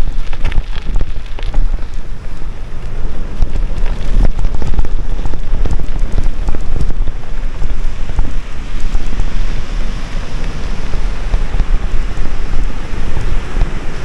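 Wind buffeting the microphone over a steady low rumble, with many small clicks and rattles, as a touring bicycle is ridden over rough ground. The clicks are thickest in the first few seconds.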